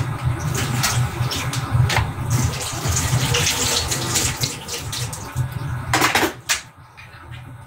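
Kitchen tap running into the sink, a steady rush of water with a few knocks, shut off about six and a half seconds in.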